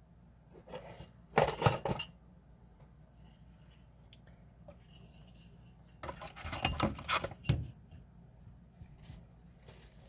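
Small metallic clicks and clatter of a Kizer Mini Roach folding knife being handled and set down for measuring and weighing. The clicks come in two short bunches, about a second and a half in and again around seven seconds in, with faint ticks between.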